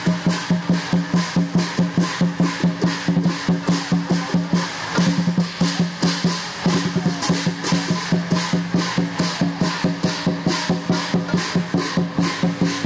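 Lion dance percussion: drum, cymbals and gong beating a fast, even rhythm of about three to four strokes a second over a steady ringing tone. About five seconds in, the beat thickens into a denser stretch for a second or two, then returns to the steady pattern.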